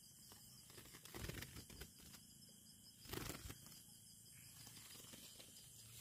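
Faint rustling and handling noise, in two short bursts about a second and three seconds in, with near silence between.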